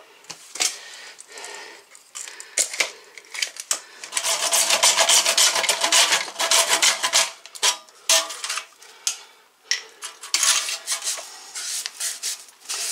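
Hand saw cutting PVC pipe, a run of fast rasping back-and-forth strokes that is loudest in the middle, with shorter bursts of scraping and a few knocks around it.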